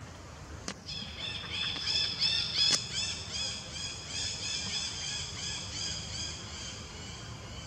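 A bird calling in a fast series of short, arched, high chirps, about three or four a second, loudest around two to three seconds in and fading toward the end. Two sharp clicks sound early on, over a steady low rumble.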